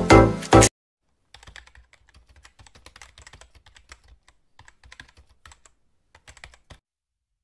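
Loud music cuts off suddenly, then after a short gap comes a fast, uneven run of soft computer-keyboard typing clicks that stops shortly before the end.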